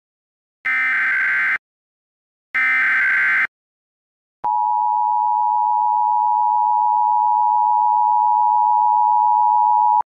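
Emergency Alert System signal: two harsh one-second bursts of SAME header data tones, about a second apart, the last of a set of three. About four and a half seconds in, the steady two-tone EAS attention signal (853 and 960 Hz) starts and holds.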